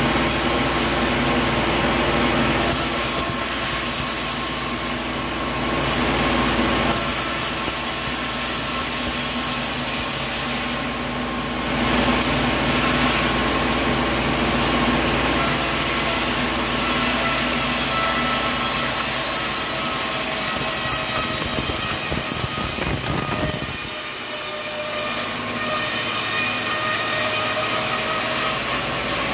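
Sawmill machinery running while coconut logs are milled: a steady mechanical whine with several tones over a noisy hum. The sound changes abruptly several times.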